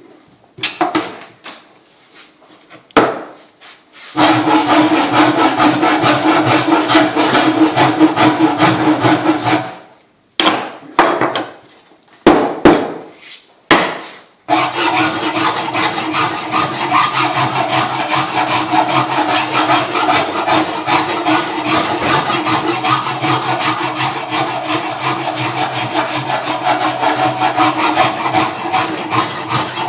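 Wooden bow being shaped with an abrasive tool: a steady, dense scraping of wood that starts about four seconds in, breaks off into a few short bursts around the middle, then runs on steadily. A few scattered knocks come before it.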